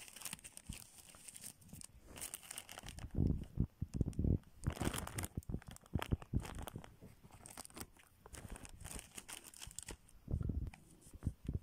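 Clear plastic packaging crinkling and tearing as it is cut open with scissors and handled, in irregular rustling bursts that are loudest about three to five seconds in and again near the end.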